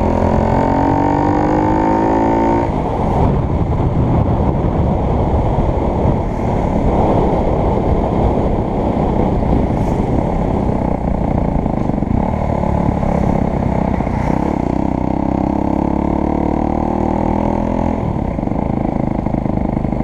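Motorcycle engine with a turbo exhaust, fed by modified Yamaha Mio 115 carburettors, running under way. Its pitch rises for about two and a half seconds, then drops away into a dense rushing noise. A steady engine note comes through again from about twelve to eighteen seconds.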